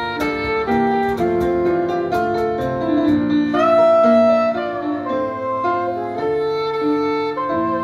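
Soprano saxophone playing a jazz melody over grand piano accompaniment, holding a loud long note about halfway through.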